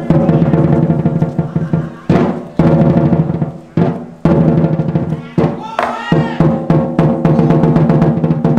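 Large Chinese lion dance drum beaten with two sticks: fast rolls and runs of strokes with short breaks between, the drumhead ringing on under the strokes.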